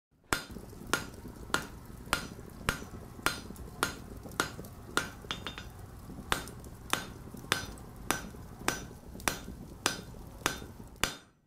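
Blacksmith's hammer striking metal on an anvil in a steady rhythm, about one ringing blow every 0.6 seconds, over a steady low rumble that cuts out near the end.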